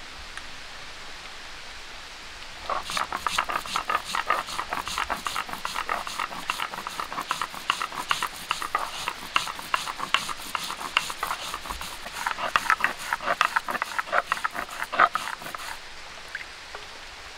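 Mustard seeds ground on a shil-nora, a hand-held stone worked across a flat grinding stone: rapid gritty scraping and crunching strokes that start about three seconds in and stop shortly before the end.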